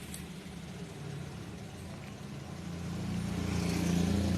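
Car engine running at low speed, a steady low hum that grows louder over the last second or so.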